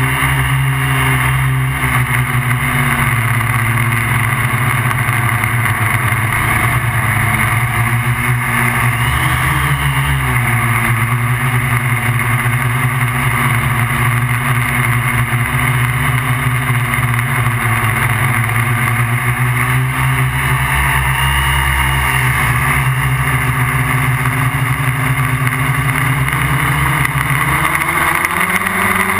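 MikroKopter QuadroKopter XL quadcopter's electric motors and propellers humming steadily, heard from the GoPro mounted on the craft. The pitch shifts up and down a few times as the motors change speed, most clearly near the end.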